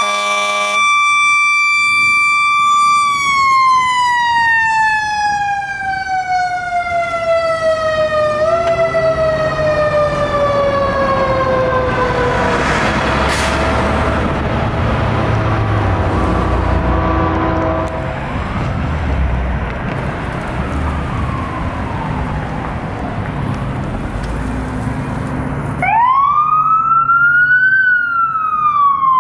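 Fire truck responding: an air horn blast cuts off about a second in while a mechanical siren holds a high tone, then winds down in pitch for about ten seconds with a brief push back up partway. Heavy diesel engine rumble follows as the truck passes, and near the end an electronic siren starts a rising-and-falling wail.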